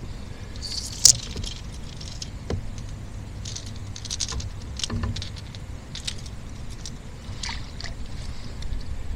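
Scattered small knocks, clicks and light water splashes around a fishing kayak over a steady low hum, with one sharp click about a second in.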